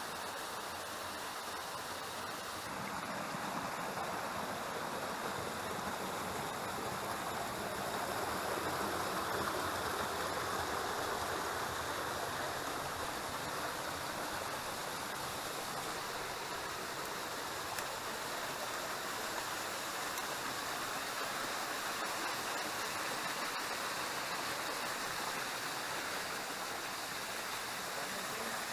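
Waterfall rushing steadily: falling water with an even hiss.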